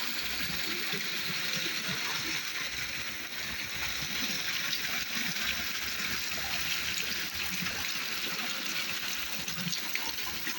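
Water falling steadily over a newly built artificial landscape waterfall, an even splashing rush.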